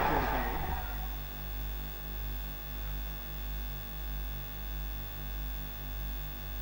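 Steady low electrical hum with an even series of buzzing overtones, swelling and fading regularly about three times every two seconds. A louder sound fades out in the first second.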